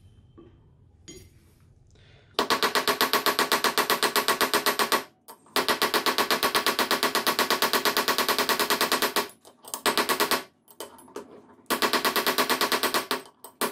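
A wooden-handled hammer striking the steel head of a cross peen hammer held on a steel block, in rapid light blows of about six a second with a metallic ring. The blows start about two seconds in and come in runs of a few seconds with short breaks.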